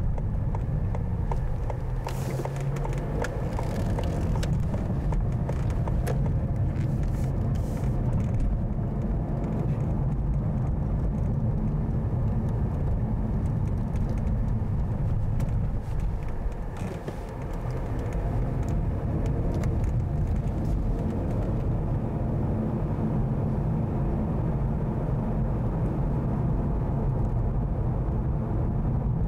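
Road and engine noise inside a moving car's cabin: a steady low rumble that dips briefly a little past halfway.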